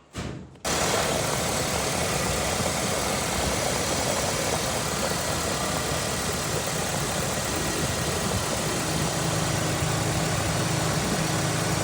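A 2002 Honda Civic's four-cylinder engine comes on loud just under a second in and runs steadily at idle with a loud, coarse note, the result of modifying the car to make it louder.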